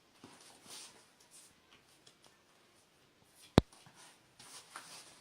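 Faint rustling of paper being handled, with one sharp click about three and a half seconds in.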